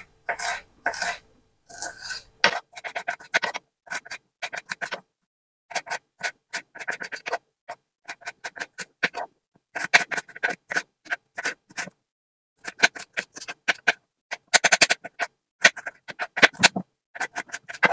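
Kitchen knife dicing bell peppers on a wooden chopping board: runs of quick, crisp cuts, several a second, with short pauses between runs.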